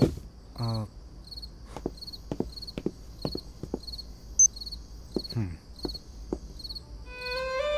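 Crickets chirping in a steady, even pulse. A few light footsteps fall in the middle, there are two short vocal sounds, and soft music fades in near the end.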